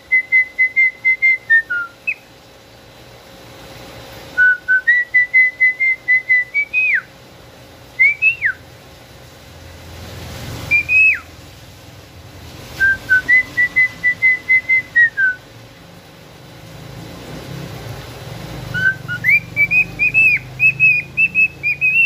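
Male cockatiel whistling a repeated tune: runs of quick short notes on one pitch, stepping up at the start of each phrase. Between phrases come a couple of single swooping whistles.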